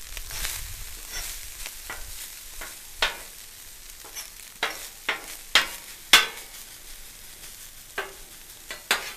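Metal spatula scraping and clacking on a Blackstone griddle's steel cooktop as pre-boiled white rice is spread and turned, over a faint sizzle from the hot plate. About seven sharp scrapes come at uneven intervals, the loudest about six seconds in.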